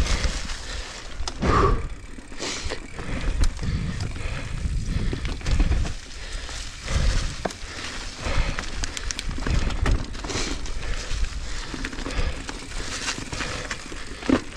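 Mountain bike riding down a dirt singletrack covered in dry leaves: tyres rolling and crunching over dirt and leaves, with knocks and rattles from the bike over bumps and wind rumble on the helmet microphone.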